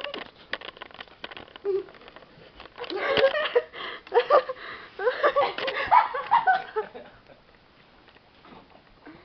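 People giggling and laughing in short bursts, mixed with knocks from the camera being handled; it dies down to quiet for the last couple of seconds.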